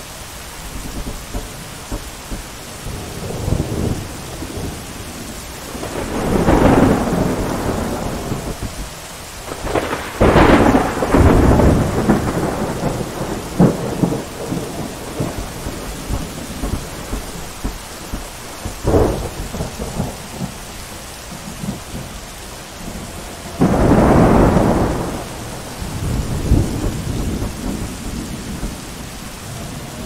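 Steady rain with thunder rolling in several times, each roll swelling and fading over a few seconds, and one short sharp crack of thunder in the middle.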